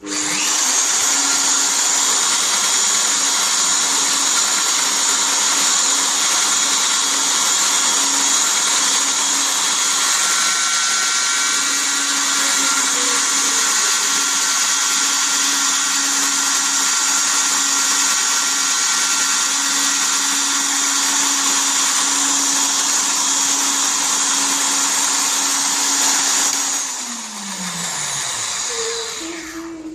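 Electric motor of a portable tube face milling machine running at a steady speed, a constant hum under a loud high hiss. About 27 seconds in it is switched off and the pitch falls as it winds down.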